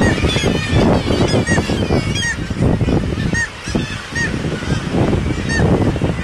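A black-legged kittiwake breeding colony calling: many birds crying over one another in a dense din, with short calls that rise and fall in pitch repeating every second or so.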